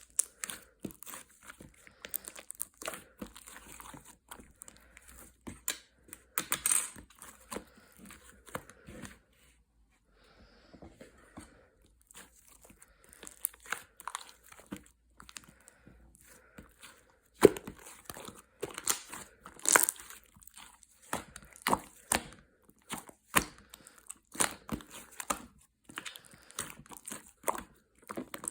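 Irregular crinkling and crackling with many sharp clicks, like something crumpled or torn by hand. It pauses briefly near the middle and grows louder in the second half.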